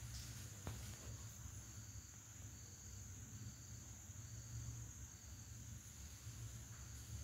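Faint short high chirps repeating about every three-quarters of a second over a steady high hiss and low hum.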